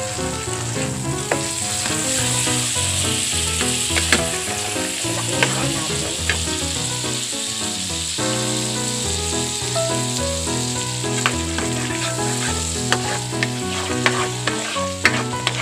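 Margarine melting and sizzling in a nonstick frying pan, stirred with a spatula that clicks and scrapes against the pan now and then.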